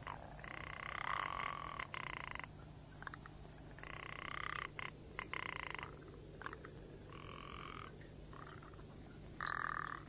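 Repeated buzzing animal calls in bouts of one to two seconds, four in all, over a faint steady low hum.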